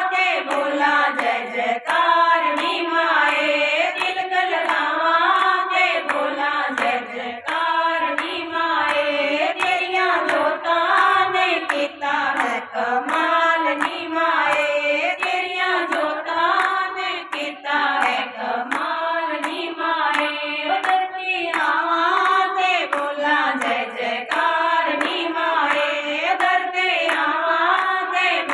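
A group of women singing a devotional bhajan together, with steady, even hand-clapping keeping time.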